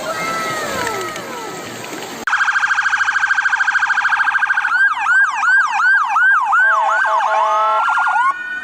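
A few falling whistle glides, then an electronic police-style siren that cuts in suddenly about two seconds in. It runs through several patterns: a fast pulsing yelp, then quick rising-and-falling wails about three a second, then a steady two-tone stretch and a final rising glide.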